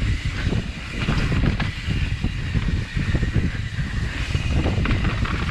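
Kona Process 153 mountain bike riding fast down a rough dirt trail: wind buffeting the microphone over a steady rumble, with many small knocks and rattles from the bike over the ground.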